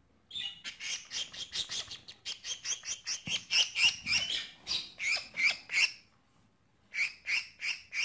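A budgerigar held in the hand while being dusted with mite powder gives a rapid string of harsh calls, about four a second. The calls break off about six seconds in and start again a second later.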